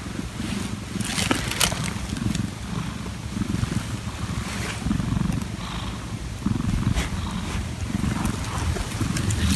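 Domestic cat purring, a low rumble that swells and fades in a steady rhythm with its breathing. One short sharp noise about a second and a half in.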